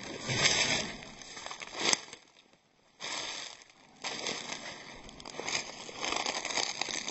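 Footsteps rustling and crunching through dry leaf litter and brush in uneven bursts, falling almost silent for about a second in the middle.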